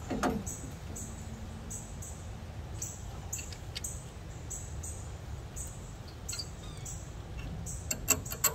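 Screwdriver prying the outer brake pad out of a rear disc-brake caliper, with a few sharp metal clicks about eight seconds in. A bird chirps over and over throughout, short high chirps about every half second, over a low steady hum.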